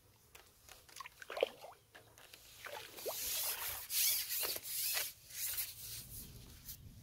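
Water splashing and streaming off a fishing landing net as it is lifted out of the lake with a roach in it, loudest from about three to five and a half seconds in.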